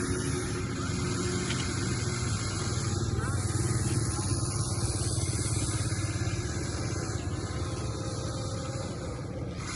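Small electric motors and plastic gear drives of radio-controlled construction models buzzing steadily, swelling slightly a few seconds in.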